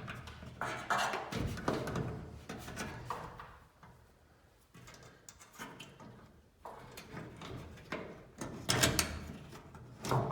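Sectional garage door travelling on its tracks, rollers rumbling and panels rattling and knocking, in two runs with a quieter pause between them.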